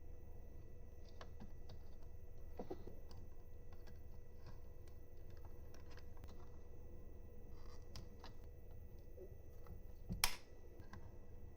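Light, scattered clicks and taps from small hardware being handled, with one sharper click about ten seconds in, over a faint steady hum.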